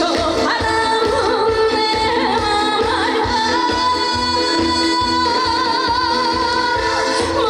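A trot song performed live: a woman singing over an instrumental backing with a steady beat, holding one long note through the second half.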